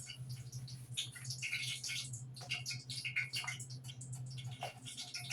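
Kitchen handling sounds: irregular soft taps, clicks and rustles while the cornmeal-and-flour batter is readied for the chicken, over a steady low hum.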